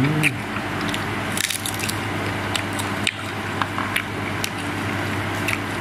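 Wet chewing of raw sliced beef, with scattered short sharp clicks, over a steady low hum.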